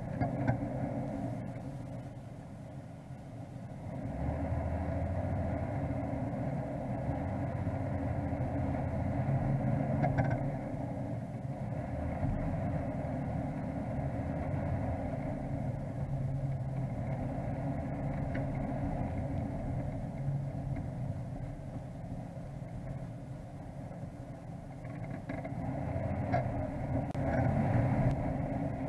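Off-road vehicle's engine running at low speed on a rough dirt track, heard from inside the cabin, with a steady drone and a few light knocks from the body. About four seconds in, the engine note deepens and grows louder.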